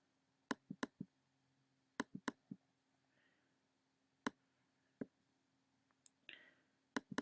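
Computer mouse clicks, about a dozen sharp clicks in short runs and some in quick pairs, over a faint steady hum.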